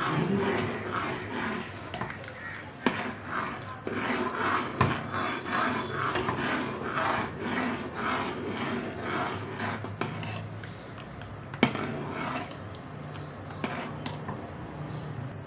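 A metal spoon stirred fast around an aluminium saucepan of hot milk, scraping the pan in quick strokes about twice a second as cornflour slurry thickens the milk. The stirring eases off about ten seconds in, with a couple of sharp clinks of spoon on pan near the end.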